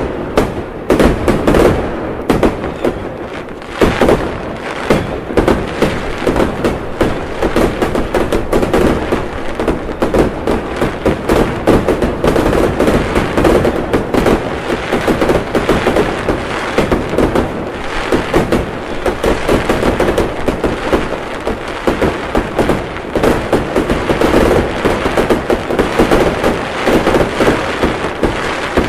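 A dense fireworks barrage: many bangs and crackles a second, overlapping without a break.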